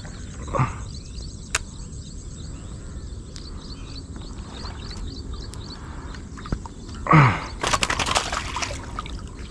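Water splashing as a hooked snakehead is grabbed by hand in shallow water: a sudden loud splash about seven seconds in, then a second or so of further splashing. Small birds chirp repeatedly in the background.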